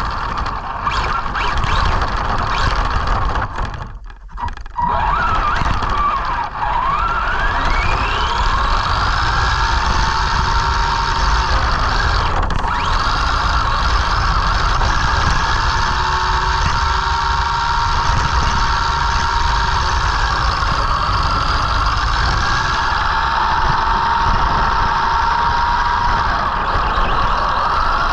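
Arrma Senton RC truck's electric motor whining, the pitch rising and falling with the throttle, over a steady rushing noise. The whine cuts out briefly about four seconds in.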